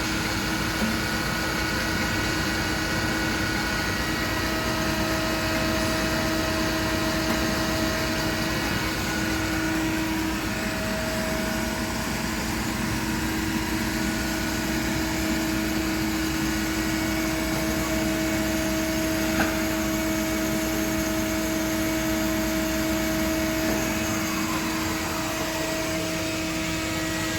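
Cincinnati CH 2500 horizontal machining center running: a steady machine hum with several steady tones, and a single short click about two-thirds of the way through.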